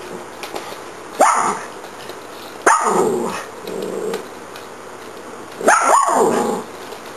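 Small dogs barking in play: four sharp barks, the last two close together, with low growling in between.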